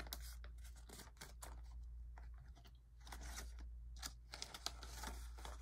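Paper banknotes rustling and crinkling as they are handled and tucked into a ring-binder cash envelope, heard as faint, irregular crisp crackles.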